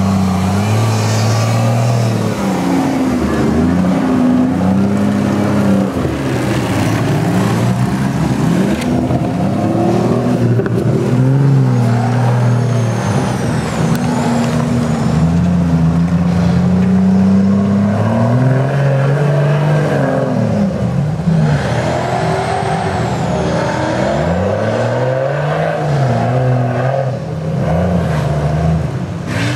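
Modified off-road 4x4 engines revving hard and repeatedly, the pitch climbing and dropping with each burst of throttle as the vehicles labour through deep mud.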